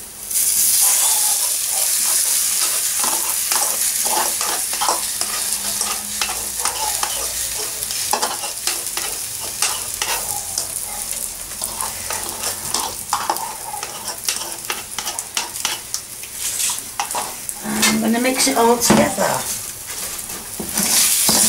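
Beaten egg and ham sizzling in hot oil in a wok of rice. The sizzle breaks out loudly as the egg goes in, and a wooden spoon keeps stirring and scraping against the pan.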